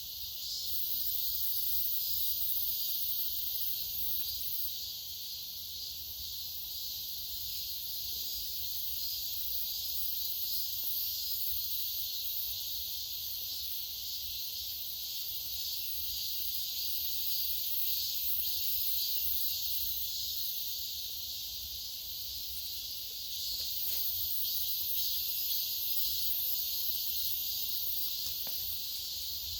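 Outdoor insect chorus: a dense, steady high-pitched buzzing that swells and eases slightly, with a faint low rumble underneath.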